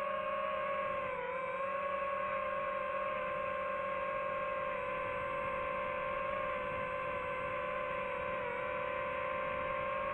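FPV racing drone's motors running with a steady whine, the pitch dipping briefly about a second in and again near the end as the throttle eases.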